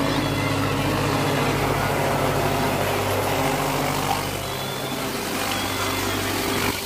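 Helicopter flying low overhead: a steady rotor and engine sound, its low tones shifting about four and a half seconds in.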